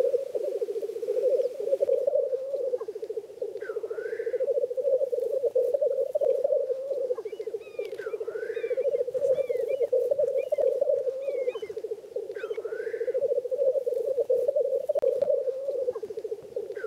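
Black grouse cocks bubbling at a lek: a continuous, low, rolling cooing chorus. Three times, about every four seconds, a short rising call sounds above it.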